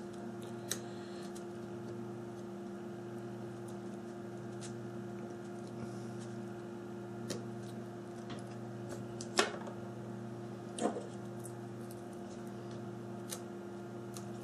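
Steady electrical hum in the background, with a few light clicks and ticks of small phone parts and tools being handled; the sharpest click comes about nine and a half seconds in.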